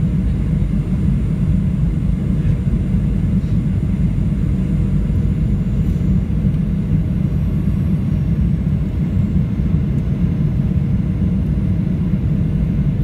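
Steady cabin noise of a Boeing 737-800 on approach, heard from inside the cabin: a deep rumble of its CFM56-7B turbofans and the airflow, with a few faint steady whining tones above it.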